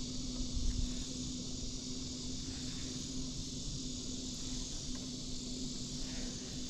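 Steady night chorus of crickets or katydids, with a constant low hum and a low rumble beneath it.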